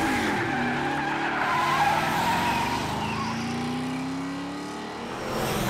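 Cartoon car engine sound effects as the cars speed off, running and revving, with the engine pitch rising slowly through the middle.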